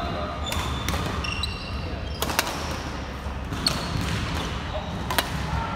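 Badminton rally: rackets striking a shuttlecock with sharp cracks every second or two, two of them close together just past two seconds in. Short high squeaks of shoes on the court floor come between the hits, over a steady low rumble.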